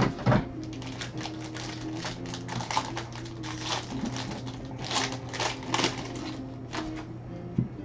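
Foil wrapper of a Gold Standard football card pack crinkling and being torn open, an uneven run of sharp crackles.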